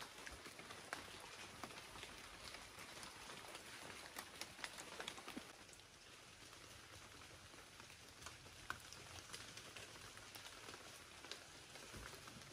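Faint patter of light rain and water drops falling on wet forest leaves: a soft, even hiss with scattered sharp drips.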